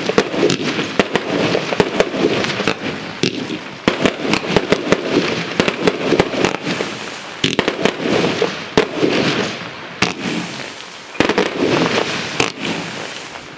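Espada Palm Display Box compound firework cake firing continuously, with rapid shots and bursts amid dense crackling. There is a brief lull about 11 seconds in before the barrage picks up again.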